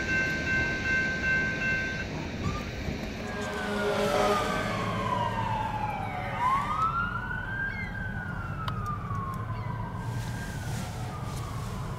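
Railroad crossing bell dinging steadily as the crossing gates rise, stopping about two seconds in. Then an emergency vehicle's siren wails, its pitch slowly falling, rising and falling again.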